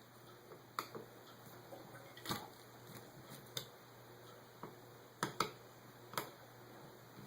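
Scattered light clicks and taps, about half a dozen at uneven spacing with two close together about five seconds in, as tools and small parts are handled while a Holley carburetor is taken apart.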